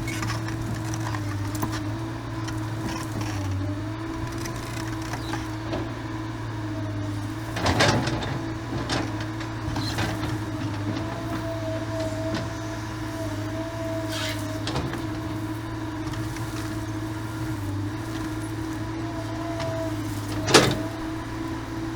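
Excavator engine running steadily with a steady whine above the engine hum, and a few sharp cracks or knocks over it, the loudest about twenty seconds in.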